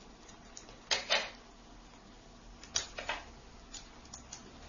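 Netbook keyboard being pressed down into its plastic case, its clips snapping into place: a pair of sharp clicks about a second in, another pair about three seconds in, then a few fainter ticks.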